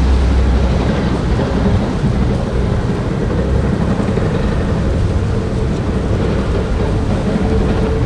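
Steady, loud mix of wind gusting across the microphone and traffic noise from the roadway alongside. A heavy low buffeting eases about a second in.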